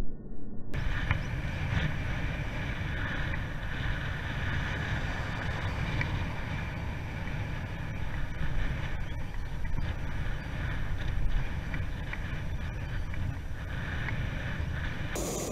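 Wind buffeting the microphone of a camera on a moving bicycle: a steady low rumble with a hiss over it.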